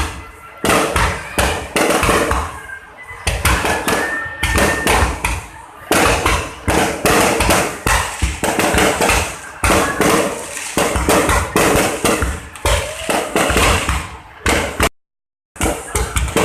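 Fireworks display: a dense, irregular barrage of bangs and booms, many overlapping each second, cut off abruptly for about half a second near the end.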